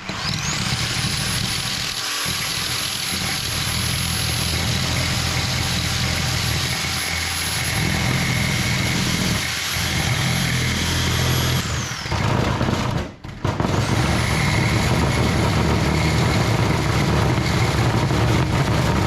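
Reciprocating saw (Sawzall) cutting through a heavy aluminum scrap piece. It starts with a rising whine and runs steadily, winds down about 12 seconds in, then starts again a second or two later and keeps cutting.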